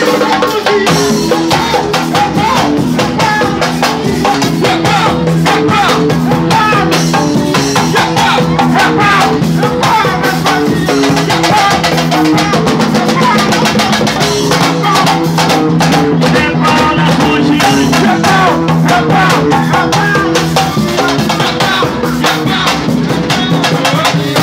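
Loud dance music: a fast, dense drum beat over a repeating bass line, with a voice singing.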